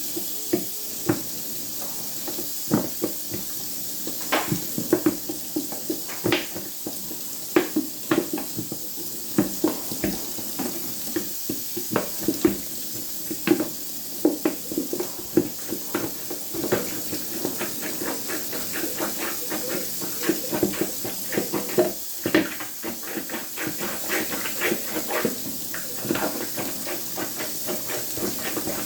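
Water gurgling and splashing in a sink, with many irregular knocks over a steady hiss, while a blocked drain is being worked on.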